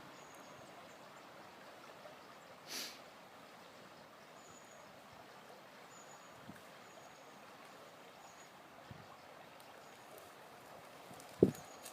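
Faint outdoor background with a steady hiss, a short rush of noise about three seconds in, and a single dull thump near the end.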